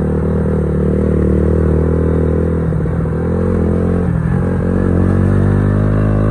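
Motorcycle engine running steadily while riding along at an even speed, with a short clatter twice, about three and four seconds in.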